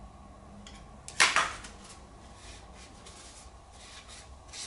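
A sharp metallic clank of hand tools, two quick strikes about a second in, followed by faint scattered clicks and rustles of tools being handled.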